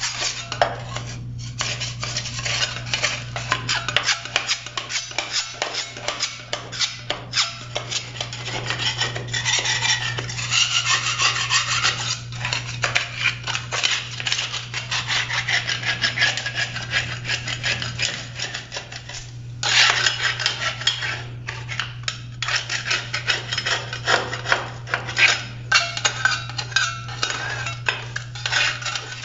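Metal putty knife scraping old silicone sealant off a shower's wall-to-floor joint: the blade grates over the concrete in rapid, repeated scratchy strokes, with a brief lull a little over halfway through.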